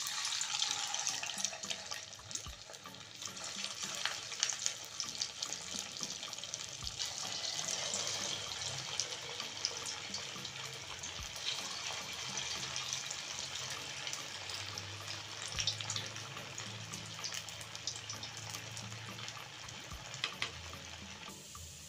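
Poha-and-potato fingers deep-frying in medium-hot oil in a kadai: a steady sizzle thick with fine crackling and popping as the fingers go in and bubble.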